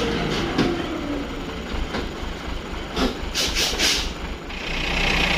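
A Mitsubishi Fuso dump truck's diesel engine running low while the loaded truck is stuck and lurching in soft mud on a climb, with scattered knocks and clanks from the truck and a cluster of them about three seconds in. A steady hiss starts about four and a half seconds in.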